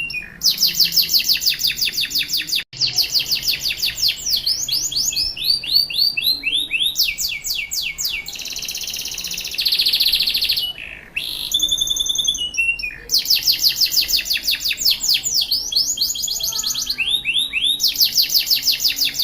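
Domestic canary singing a long, loud song of rapid trills: quick runs of repeated high notes, runs of falling sweeps, and a buzzy rolling stretch about halfway through. The song breaks off for an instant about three seconds in, then carries on.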